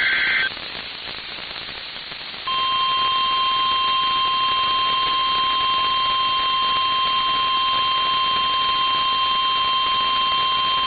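A NOAA Weather Radio EAS alert over a hiss of radio static. The tail of a warbling SAME digital header burst ends about half a second in. About two and a half seconds in, the steady single-pitch warning alarm tone starts and holds, signalling that a warning is about to be read.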